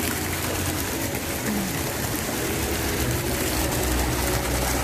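Steady rushing and splashing of water from a spout pouring into a swimming pool, with a low hum underneath.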